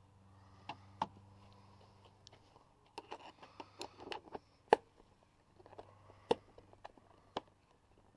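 Scattered sharp clicks and knocks of hand tools and small parts being handled, clustered a little past the middle where the loudest knock falls, over a faint low hum in the first part.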